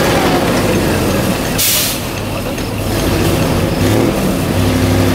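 ZIL-131 6x6 off-road truck's engine working under load as it climbs a muddy slope. A short sharp hiss of air cuts in about one and a half seconds in, the engine eases off briefly and then picks up again, running steadily toward the end.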